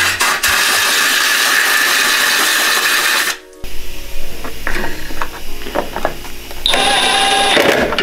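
Compressed air blasting through a fridge drip tray for about three seconds, a loud steady hiss that cuts off abruptly. After a few light clicks, a cordless drill whirs for about a second near the end.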